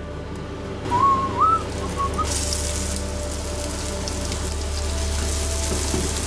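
Crumbed duck breast strips sizzling in oil in a cast-iron frying pan, the sizzle setting in about two seconds in and carrying on steadily. Just before it, a short wavering whistle sounds, over a steady low hum.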